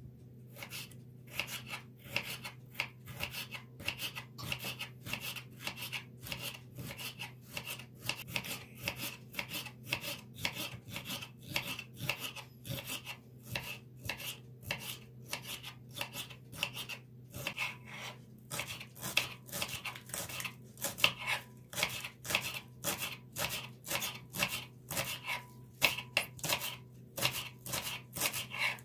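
Kitchen knife slicing a red bell pepper into thin strips, a steady run of quick cutting strokes, each knocking on the cutting board.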